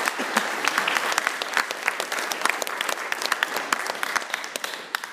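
Audience applauding: many hands clapping densely, thinning out and dying away near the end.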